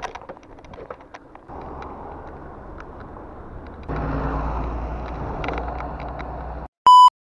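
Bicycle riding over paving with small rattling clicks. From about four seconds in, the steady low engine rumble of a city bus passing close alongside. Near the end the sound cuts off, and a short, loud electronic beep sounds at a single pitch.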